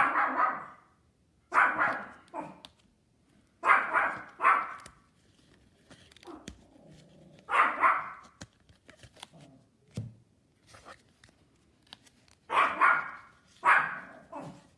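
A dog barking: short barks in ones and twos, every few seconds.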